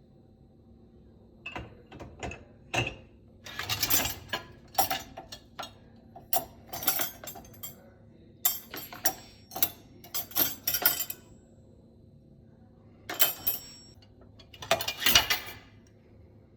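Someone handling a dishwasher: irregular clicks, clinks and rattles in clusters for several seconds, then two shorter bursts near the end.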